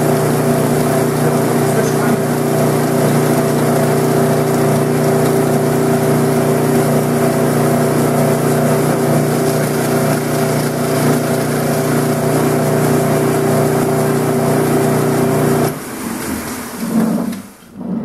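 Homemade combination belt-disc sander, driven by a half-horsepower 1725 RPM motor, running steadily with a steady hum, then switched off about sixteen seconds in and winding down.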